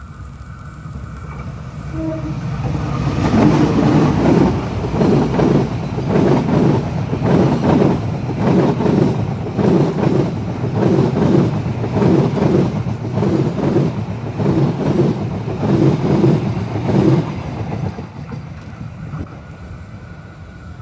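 Train passing close by at speed, its wheels clacking over the rail joints in an even rhythm of paired beats. It builds up about two seconds in and dies away near the end as the last cars go by.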